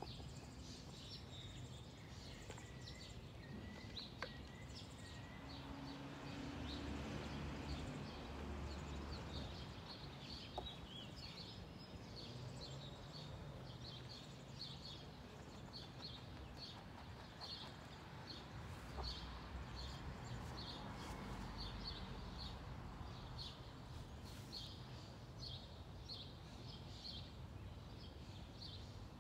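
A bird chirping over and over in short high notes. Under it is a faint low rustle of potting soil sliding out of a plastic pot into a planter.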